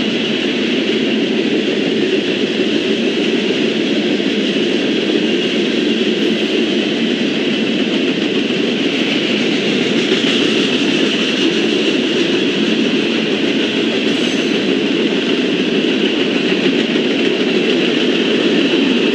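Freight cars of a mixed freight train rolling past at steady speed, a constant noise of steel wheels running on the rails.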